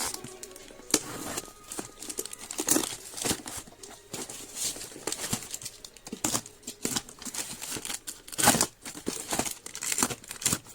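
Plastic parcel packaging crinkling and tearing as it is handled and opened, in irregular rustles with a louder rip about eight and a half seconds in.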